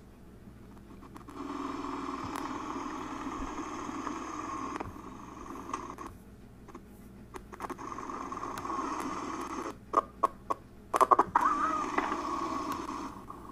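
Playback of motorcycle ride footage coming from a laptop's speakers, its road noise choppy and uneven: it drops away for a few seconds midway, then stutters with sharp crackles near the end. This is the editor's playback spitting and sputtering.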